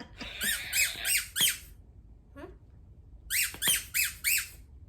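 Squeaky toy squeezed in two quick runs of four short, high squeaks each, with a pause of about two seconds between the runs: the training cue for a Squeakee balloon dog.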